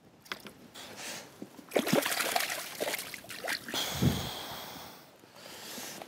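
Water splashing and trickling in several short bouts as hands work at the surface to unhook a caught fish, with the loudest splash about four seconds in.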